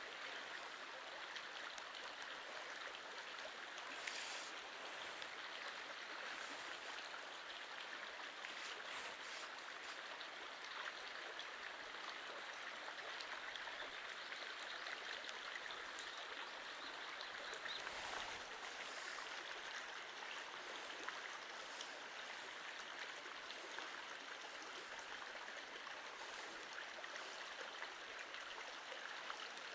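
Stream water flowing steadily over rocks: an even, unbroken rush of running water, with a few faint ticks now and then.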